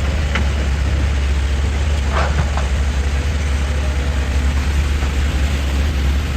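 Heavy diesel engine of an excavator running steadily with a deep drone. A few short clacks sound over it, about half a second in and twice around two seconds in.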